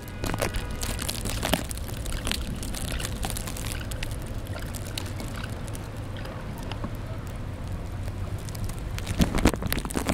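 Steady outdoor snowstorm noise: a low rumble with an even hiss over it and scattered crackles and clicks, a little busier near the end.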